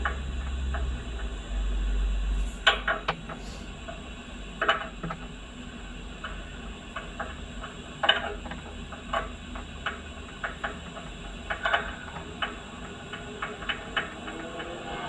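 Irregular light metallic clicks and knocks of hand work on a solar panel's frame: corner brackets and small screws being handled and screwed on by hand. The clicks come in small clusters and grow more frequent near the end, with a low rumble in the first couple of seconds.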